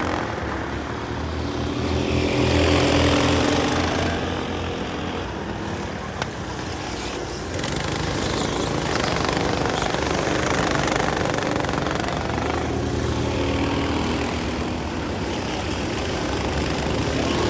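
Several racing go-karts' small engines buzzing as the karts go round the circuit, the sound swelling and fading as they pass close by and pull away.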